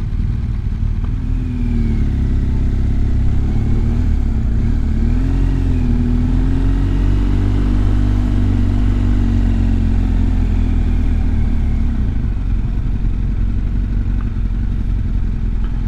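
Motorcycle engine running on the move under a constant low rumble. Its pitch rises and falls a few times between about two and twelve seconds in as the revs change.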